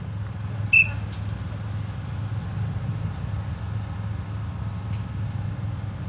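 A steady low hum with one short, sharp high-pitched chirp under a second in.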